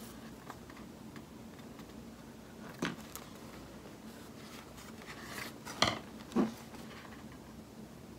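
Small desk handling sounds while washi tape is pulled and pressed onto a paper planner page: soft paper rustle and three light knocks or clicks, one about three seconds in and a louder close pair a little past the middle.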